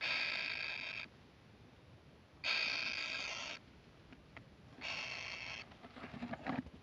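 Kingfisher nestlings' begging calls: three harsh, buzzy calls about a second each with short gaps between them, followed by a few faint scratching clicks in the nest near the end.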